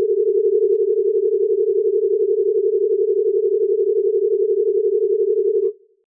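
Science-fiction UFO sound effect: a steady electronic hum at one mid pitch with a fast, even warble, cutting off abruptly near the end.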